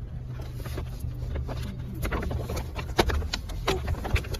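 Brown paper shopping bag rustling and knocking, with a few sharp clicks from about two seconds in, as a plush toy stuck inside it is tugged out, over a steady low car-cabin rumble.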